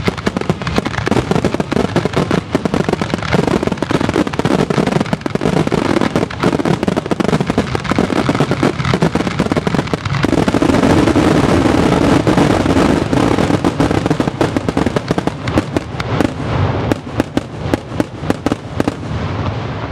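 Zambelli professional fireworks display: a dense barrage of aerial shells bursting and crackling in rapid, overlapping succession. It is loudest from about halfway through, then thins to scattered separate cracks near the end.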